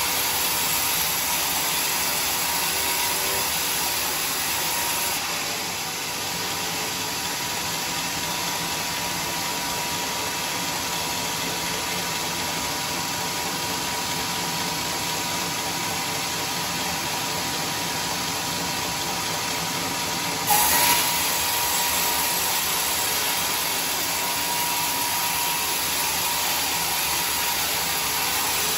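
Homemade band sawmill running steadily, its blade ripping a squared teak beam lengthwise. One brief, louder knock comes about three-quarters of the way through.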